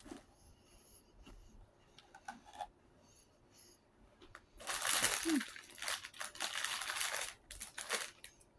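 Crinkling and rustling close to the microphone for about three seconds starting halfway through, with a shorter burst near the end. Faint small clicks come before it.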